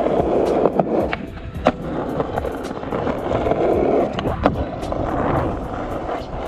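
Skateboard urethane wheels rolling on rough concrete with a stream of small clicks over the pavement seams, and one sharp, loud clack of the board hitting the ground about four and a half seconds in, as the skater takes a four-stair set.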